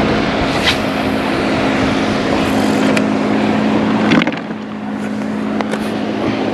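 A steady motor drone: a constant low hum over a rushing hiss. There are a few faint clicks, and a louder knock a little after four seconds, after which the drone drops slightly in level.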